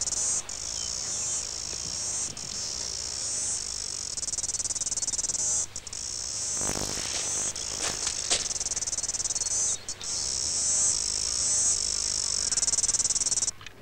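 A dense chorus of insects chirring: a steady, high, rapidly pulsing drone with a few brief breaks.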